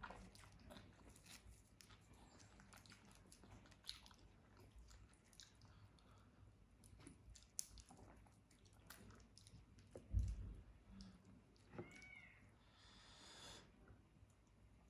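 Faint close-miked eating sounds: flaky lachha paratha torn by hand and scooped through curry, with small wet mouth clicks and chewing. A low thump about ten seconds in is the loudest sound, followed by a brief hiss a little before the end.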